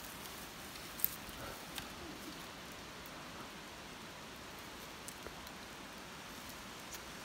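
Quiet forest ambience: a faint, steady hiss with a few small clicks and ticks, the sharpest about a second in.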